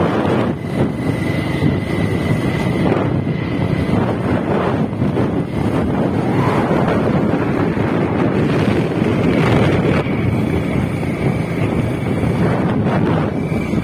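Wind buffeting the microphone on a moving vehicle, over the steady rumble of its engine and tyres on the road. A faint high whine comes in over the first few seconds and again in the second half.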